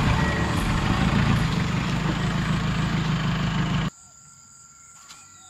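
The 3.0-litre 1KZ diesel engine of a 1991 Toyota Land Cruiser LJ79 running, a loud low steady sound that stops abruptly about four seconds in. A faint steady insect drone is left after it.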